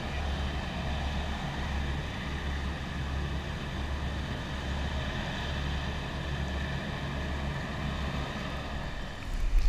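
Outboard motor running steadily under way, a constant low drone with a steady higher hum over it; a louder rumble comes in near the end.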